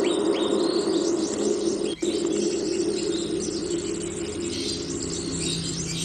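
Forest ambience: many short bird chirps and calls over a steady, dense insect drone. The whole sound drops out for an instant about two seconds in.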